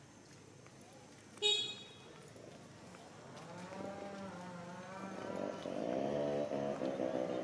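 A short high toot about a second and a half in, then low, drawn-out animal calls that rise and fall in pitch, growing louder and overlapping near the end.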